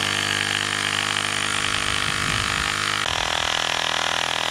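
Airmoto cordless portable air compressor running steadily, pumping air through an inflation needle into a basketball. Its tone shifts a little about three seconds in.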